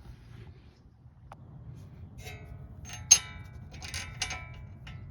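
A few sharp metallic clinks, each with a short ring, the loudest about three seconds in: steel tools and parts knocking together while working on a car's wheel hub.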